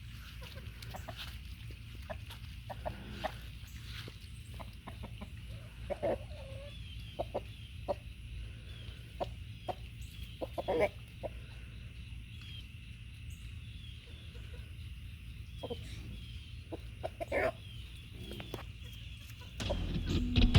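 Chickens clucking now and then, short scattered calls over a faint steady high-pitched background buzz. Music starts near the end and is louder than the clucking.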